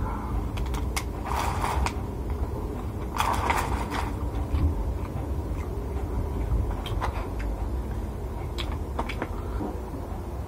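Close-up chewing and crunching of food, with two longer crunchy stretches in the first few seconds and scattered small clicks after, over a steady low rumble. Near the end, a paper food box is handled.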